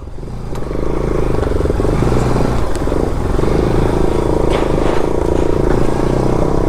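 Motorcycle engine running under way on a dirt trail, picking up over the first second and then running steadily.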